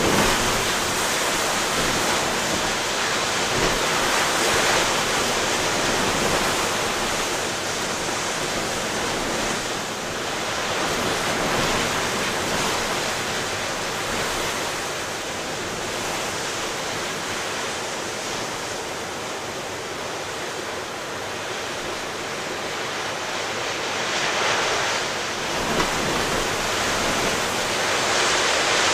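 Rough ocean surf in a storm: waves breaking and washing in a continuous rushing roar that swells and eases every few seconds, with strong wind.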